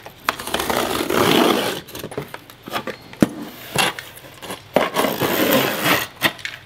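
Utility knife scoring a dense waterproof wallboard along a metal T-square, heard as a long scratchy cutting stroke. This is followed by sharp knocks and clicks, then a second scraping, tearing stretch as the board is bent along the score line.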